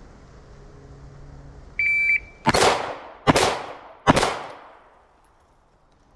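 A shot timer's start beep of about half a second, then a handgun fires three shots about 0.8 s apart, each with a short echoing tail.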